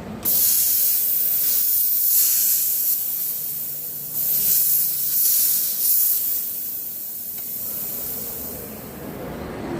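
Jeweler's steam cleaner hissing in a long series of surging blasts, loudest about four to six seconds in and fading near the end, as plated jewelry is blasted clean.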